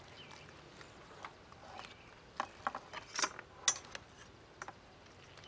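Steamed clam shells clinking against a metal slotted spoon and the enamelware pot as they are scooped out: a handful of sharp clicks and clacks, most of them between about two and a half and four seconds in.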